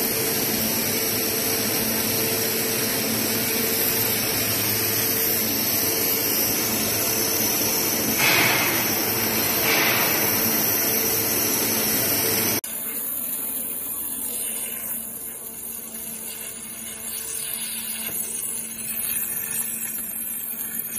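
Abrasive waterjet cutting machine's high-pressure jet cutting through sheet material: a loud, steady hiss with a low, steady hum beneath it. A little past halfway it drops abruptly to a quieter hiss of the same kind.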